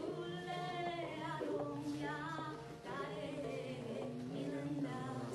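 A woman singing a Sindhi song unaccompanied, in long held notes that glide from one pitch to the next, with lower voices singing along beneath her.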